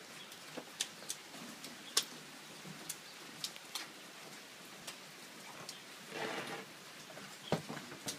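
Rain falling, with irregular sharp drips ticking on hard surfaces.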